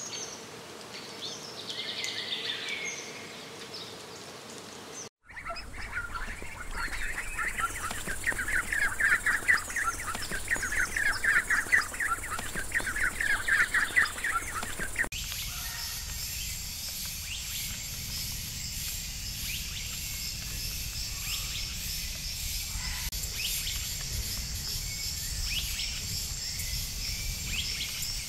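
Nature ambience of birds and insects, changing abruptly twice. First come scattered bird chirps. From about five seconds there is a dense run of rapid, repeated chirping calls. From about fifteen seconds a steady, high insect drone sets in, with occasional short bird calls over it.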